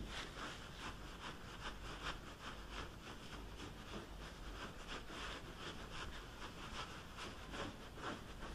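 Soft, even rubbing strokes on hair, about two or three a second.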